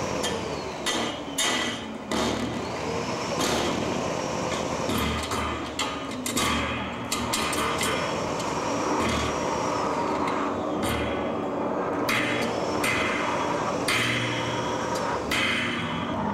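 Live noise-art performance: a dense, continuous wash of noise broken by frequent sharp clanks and clicks, with pitched sweeps that rise and fall every few seconds.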